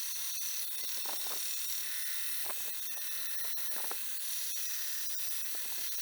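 Grinder running steadily with a high-pitched hiss and a thin whine, grinding steel sword fittings to shape, with a few short scraping rasps as the work is pressed to it.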